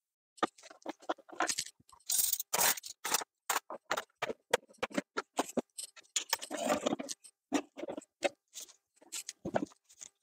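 Irregular rustling, scraping and light knocks of kitchen kit being handled: things moved about in a plastic basket and a padded bag lifted from the floor. Dead silence falls between the noises.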